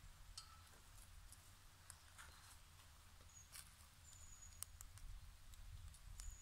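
Near silence with a few faint clicks of metal tongs against a metal grill frame over campfire ashes, and three short, thin high whistles in the second half.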